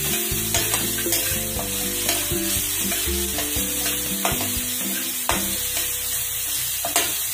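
Onions, green chilli and peanuts sizzling in oil in a nonstick frying pan while a spatula stirs them, with several sharp scrapes and taps of the spatula against the pan. Faint background music with held low notes runs under it.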